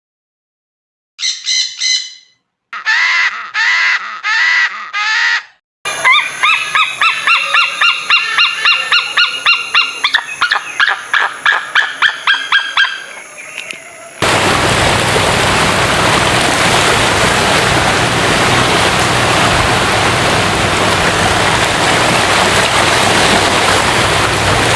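Birds calling: two short runs of loud calls, then a fast, steady series of about three calls a second that ends about fourteen seconds in. A steady rushing noise then cuts in abruptly and continues.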